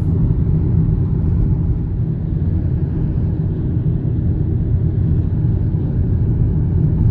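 Car driving along a highway: a steady, low road and engine rumble.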